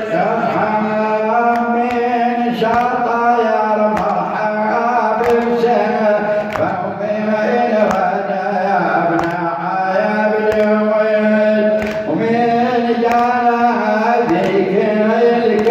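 A male reciter chanting a Shia nawha lament solo through a microphone, in long held and bending melodic phrases.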